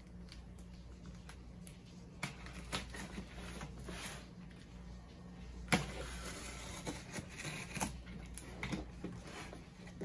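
Box cutter slicing the packing tape on a cardboard shipping case: scraping and rustling with scattered sharp clicks, the loudest about halfway through, over a low steady hum.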